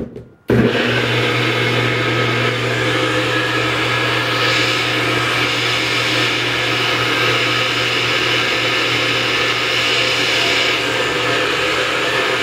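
Nutribullet blender motor starts suddenly about half a second in and runs steadily, blending a chocolate protein shake with frozen dark cherries.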